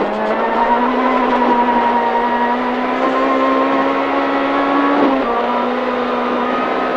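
Honda Civic Type-R rally car's four-cylinder engine pulling hard under load, heard from inside the cabin, over tyre and road noise. Its pitch rises slowly through the gear, dips briefly about five seconds in, then climbs again.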